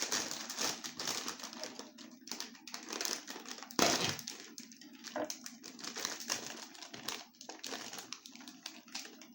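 Plastic snack bag of pork rinds crinkling and rustling as it is handled and reached into, with a sharp louder crackle about four seconds in.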